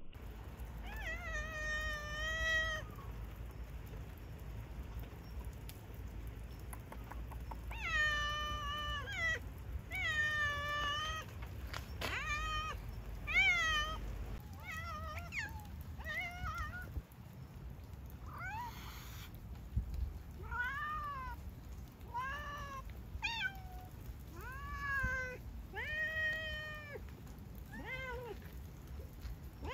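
Domestic cat meowing again and again, more than a dozen calls. The first few are long and drawn out; from about two-thirds of the way in they come as shorter calls that rise and fall.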